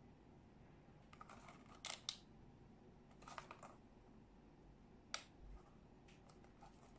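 Faint handling noise of a small cardboard product box being turned over in the hands: a few light taps and scrapes, sharpest about two seconds in and again about five seconds in.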